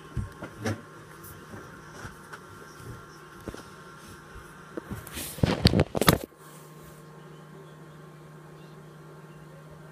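Scattered clicks and small knocks, then a loud burst of rustling and bumping a little past halfway, over a steady low hum.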